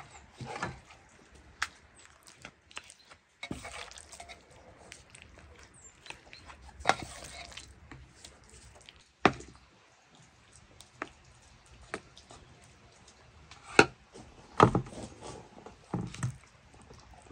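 About a dozen irregular knocks and taps of food preparation, such as a knife or utensils striking a wooden board, with pauses between them and the loudest pair near the end.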